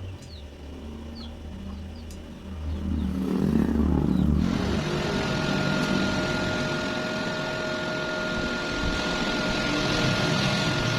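Electric arc welding: the arc strikes suddenly about four seconds in and then burns steadily, a dense hiss with a faint steady whine under it.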